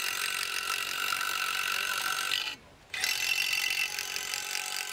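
Cordless drill/driver running under load as it works into concrete through a steel column leveling plate, for Tapcon screw holes. It runs steadily, stops about two and a half seconds in, and starts again half a second later.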